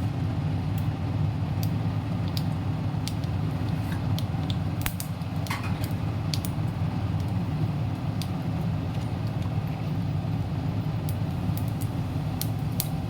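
Mustard seeds popping and spluttering in hot oil in a kadai: scattered sharp pops at irregular intervals over a steady low hum.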